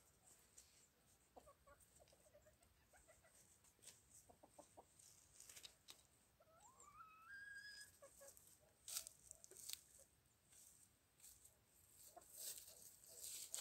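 Faint soft clucking from bantam chickens foraging, with one rising call about seven seconds in. Scattered rustling and scratching in dry leaves.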